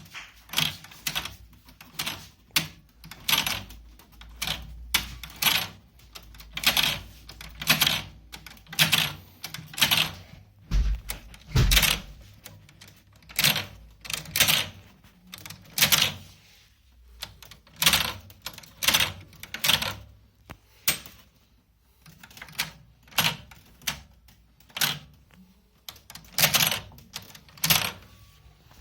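An irregular run of sharp clacks and knocks from hard objects being handled, roughly one or two a second, with a heavier low thump about twelve seconds in.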